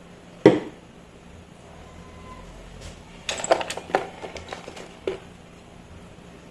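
A sharp knock about half a second in, then a quick run of clicks and knocks over about two seconds, like hard objects handled on a work surface.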